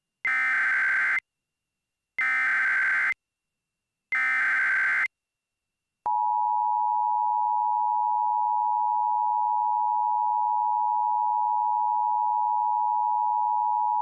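Emergency Alert System SAME header: three one-second bursts of warbling digital data tones, then the two-tone EAS attention signal (853 and 960 Hz), held steady for about eight seconds and cutting off sharply at the end.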